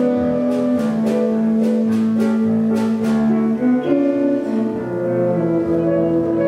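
Instrumental accompaniment to a stage musical: held notes over evenly spaced plucked or struck notes about twice a second, giving way to slower sustained chords about four seconds in.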